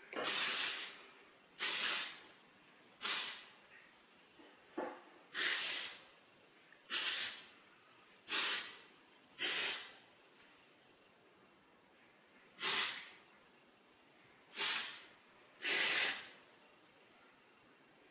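Aerosol hairspray can sprayed over hair in about ten short bursts, each around half a second long, at an uneven pace with a pause of a couple of seconds about two-thirds of the way through. The spray sets freshly waved hair before it is combed out.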